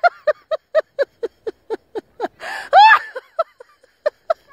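A woman laughing nervously in a quick string of short, high 'ha' pulses, about six a second, broken about two and a half seconds in by one louder rising-and-falling squeal.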